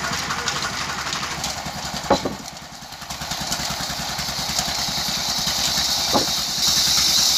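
Large band saw running with a steady motor hum, broken by a sharp knock about two seconds in and a shorter one near six seconds. Near the end a loud high hiss sets in.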